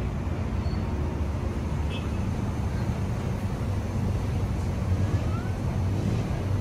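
Steady low rumble of running machinery, with a faint short high chirp about two seconds in and a faint rising squeak about five seconds in.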